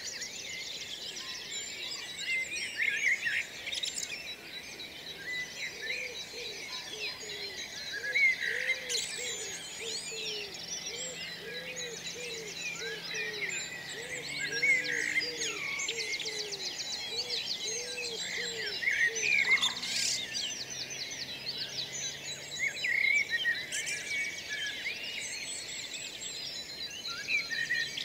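Dawn chorus: many songbirds singing and chirping at once, a dense overlapping mix of trills and short calls. Through the middle stretch a lower call is repeated steadily, about once a second.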